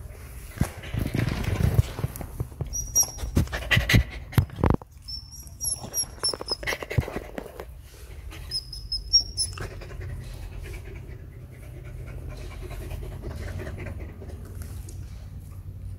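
Mother dog panting, steady through the second half, after a first half of scattered knocks and rustles with a few short high chirps.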